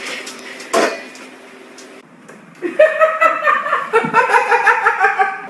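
A person bursts into rapid, high-pitched laughter about three seconds in, a quick run of ha-ha pulses. A short sharp knock comes about a second in.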